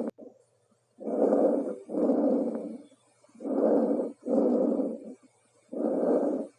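Normal tracheal breath sounds heard by auscultation over the trachea. There are three breaths, each a harsh rush of air going in and then coming out, like air being blown through a pipe, with the two halves about equal in length and a short break between them.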